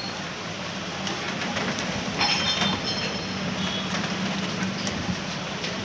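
Cloth rag rubbing over the greasy metal cylinder of a breaker hammer as it is wiped clean, with a cluster of light metallic clinks about two seconds in, over a steady low background hum.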